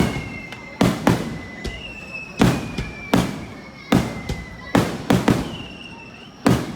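Fireworks going off at close range: about nine sharp bangs in quick, uneven succession, some in pairs. Between the bangs, high whistling tones slide slowly downward.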